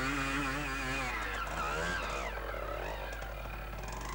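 Small trials motorcycle engine running under throttle, its pitch wavering up and down, then dropping and fading about two seconds in.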